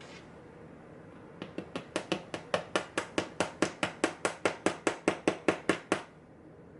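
Quick run of about two dozen evenly spaced metal taps, roughly five a second, getting louder, then stopping. A pin tumbler lock is being tapped while it is gutted, to knock out a spring that is stuck in its pin chamber.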